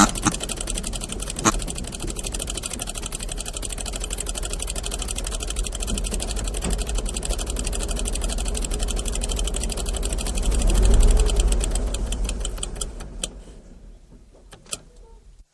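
Old jalopy's engine in a cartoon sound effect: a fast, steady rattling chug after a sharp bang. It swells about two-thirds of the way through, then dies out with a few last clicks near the end.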